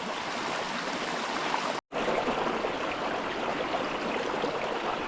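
Small creek running over rocks: a steady rush of flowing water, broken by a split-second gap about two seconds in.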